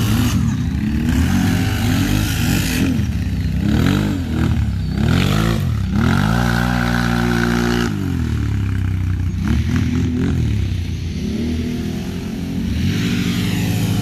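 Kawasaki Brute Force 750 ATV's V-twin engine revving up and down over and over as it spins its bald stock tires through sand and mud. It holds steady high revs for about two seconds near the middle.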